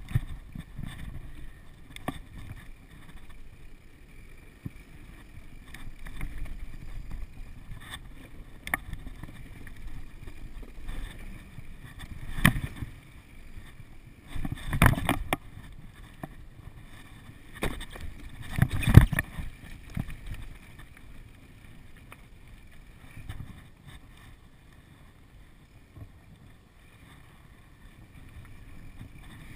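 Downhill mountain bike ridden fast over wooden boardwalk and dirt trail: a steady rumble of tyres with knocks and rattles from the bike, and loud clattering jolts about 12, 15 and 19 seconds in.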